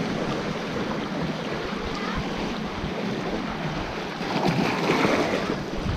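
Small sea waves washing and splashing over rocks at the water's edge, heard close up with the microphone just at the surface, swelling louder a little past four seconds in.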